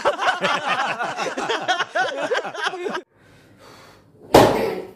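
A voice makes a rapid run of short rising-and-falling sounds for about three seconds. Then, about four seconds in, a leather belt lands on a man's back with one loud, sharp smack.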